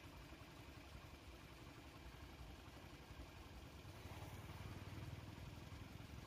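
Faint, steady low hum of a vehicle engine idling, growing slightly louder about four seconds in.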